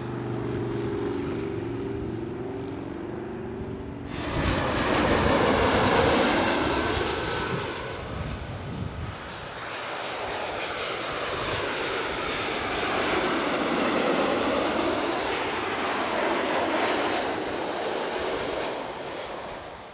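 Jet airliners passing low overhead. A steady engine hum with a few low tones gives way, about four seconds in, to a sudden loud jet swell full of sweeping rising and falling tones. It eases off, then a second jet swell builds and passes.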